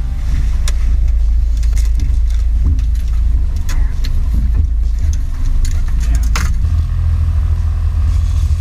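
Boat's outboard motor running with a steady low rumble, its sound changing about six and a half seconds in, with a few sharp knocks and clicks over it.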